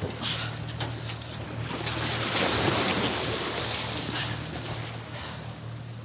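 Heavy splashing of churned water as a tiger shark thrashes at the surface beside a boat, swelling to its loudest mid-way, over the boat's steady low motor hum.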